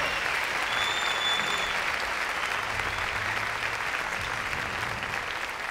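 Audience applauding, with a high whistle about a second in.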